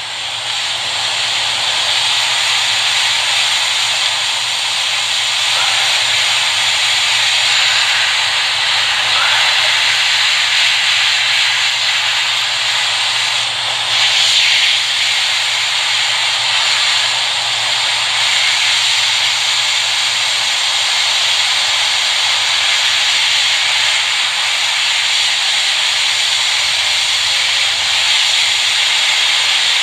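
Hot air rework station blowing a steady hiss of hot air set to 350 onto an iPhone 6 logic board. It is heating the Tristar charging IC to melt its solder so the chip can be lifted off.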